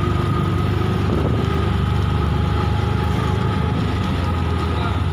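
Steady low engine rumble of the motor vehicle being ridden along a street, with a faint constant high whine running over it.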